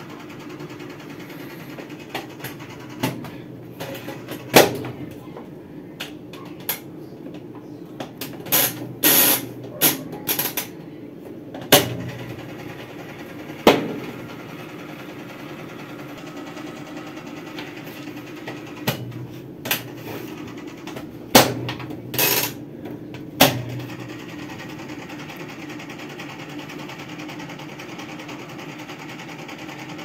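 Whirlpool washing machine motor humming steadily while powered but not turning: the washer neither agitates nor spins, even with a new capacitor fitted. Several sharp clicks and knocks come in irregularly through the middle of the hum.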